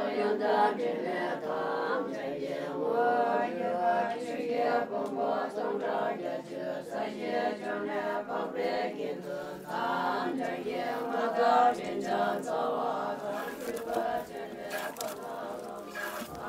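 A group of voices chanting Buddhist prayers together, many overlapping voices in a continuous recitation.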